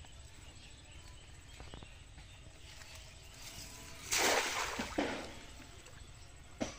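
A thrown cast net lands on the pond water, about four seconds in, in a burst of splashing about a second long. A short sharp knock comes near the end.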